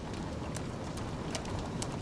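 Keystrokes on a low-profile computer keyboard, irregular light clicks a few times a second, over a steady hiss of light rain.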